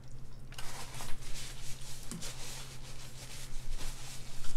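Close-up crackling and rustling from king crab legs being handled and picked apart in sauce, starting about half a second in, over a steady low hum.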